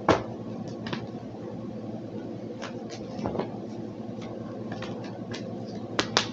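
Scattered light clicks and taps of handling, the sharpest right at the start and a pair near the end, over a steady low hum.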